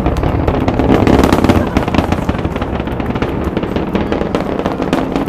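Space Shuttle Discovery's launch roar, mostly from its solid rocket boosters: a loud, continuous rumble full of rapid crackling, swelling to its loudest about a second in and then holding steady.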